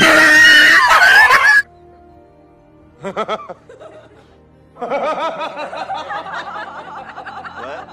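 A loud burst of sound cuts off sharply after about a second and a half. Faint background music follows, then a man's brief snicker about three seconds in and a longer run of chuckling laughter from about five seconds in.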